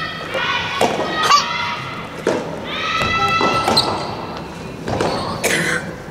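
Soft tennis rally in a gymnasium hall: several sharp racket strikes on the soft rubber ball, with long high-pitched shouts held for about a second each, near the start and again around the middle.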